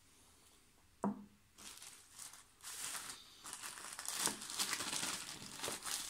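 A single knock about a second in, then plastic packaging crinkling and rustling in irregular bursts as it is handled.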